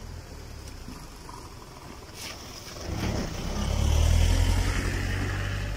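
A motor vehicle's engine rumbling low, swelling about three seconds in and loudest a second later, with a brief click a little before.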